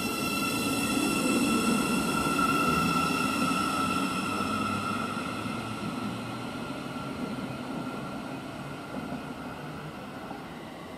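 Thameslink Class 700 Desiro City electric multiple unit running away along the platform: a steady electric whine over a rumble of wheels on rail, loudest a couple of seconds in and then fading as the train draws away.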